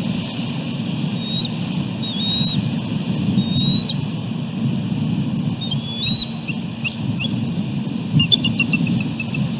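Bald eagle calling: a few thin, high whistled notes, then a quick run of short chirps near the end. A steady low rumble of wind on the microphone runs underneath.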